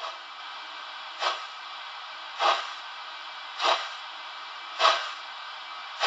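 Sound decoder of a Trix class 01 model steam locomotive, playing short steam puffs evenly about once every 1.2 seconds, each a little louder than the last, over a steady hiss.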